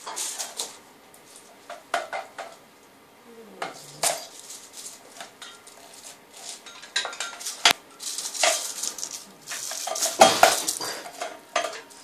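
Small bell on a cat's collar jingling in irregular bursts as the cat moves, swats and jumps, with a sharp click about two-thirds of the way through and the loudest jangle just after ten seconds.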